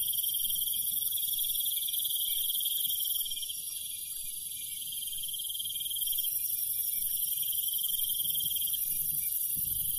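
Steady chorus of crickets trilling without pause, dipping slightly in level a few seconds in.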